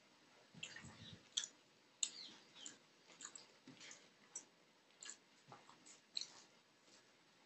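Faint close-up eating sounds: chewing, with irregular sharp mouth clicks and ticks several times a second.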